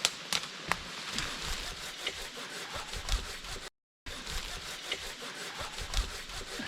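Branches and brush scraping and rubbing, with scattered twig snaps and cracks, as people push through dense bush clearing a new portage trail. The sound cuts out completely for a moment a little past halfway.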